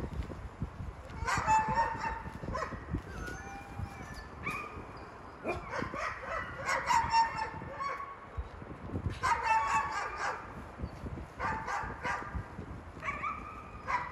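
Black Canadian wolves giving short, high-pitched whining and yelping calls that bend in pitch, several voices overlapping in bunches every second or two.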